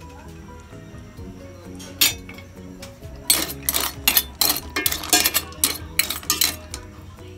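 Clam shells clattering against each other and the metal pot as they are stirred with a ladle: one clink about two seconds in, then a quick run of clinks over the next few seconds. Background music plays throughout.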